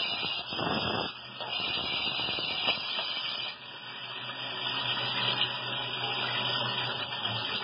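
Tsugami BS-12 III Swiss-type CNC screw machine running a cutting cycle on bar stock under a flood of coolant oil. It makes a steady high hiss over a low hum, which dips briefly about halfway through.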